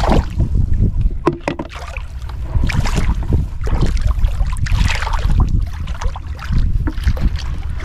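Bare feet wading through shallow muddy water, each step a slosh and splash at an irregular walking pace, over a steady low rumble of wind on the microphone.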